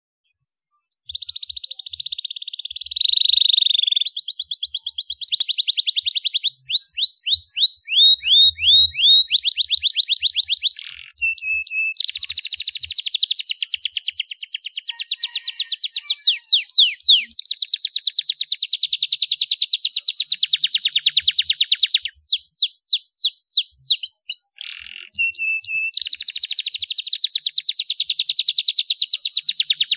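Canary singing a long, loud song of fast trills and runs of quick falling notes, high-pitched, starting about a second in and broken by two short pauses.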